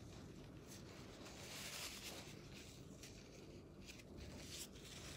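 Faint rustling of a paper tissue rubbed across the lips, against near-silent room tone.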